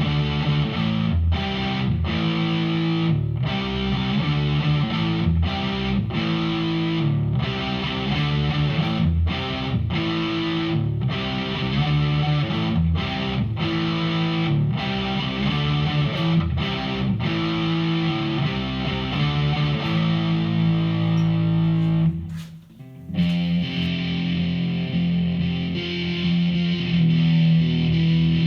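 Electric guitar played through a Behringer V-AMP PRO amp-modelling processor on a distortion preset, playing a choppy riff of short, stopped notes and chords. About three-quarters of the way through it cuts out for a moment, then comes back with held, ringing distorted chords.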